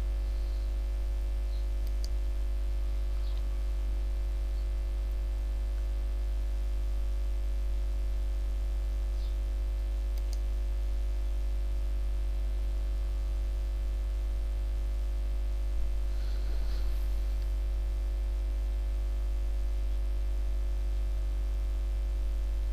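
Steady low electrical mains hum with static hiss, and a few faint clicks.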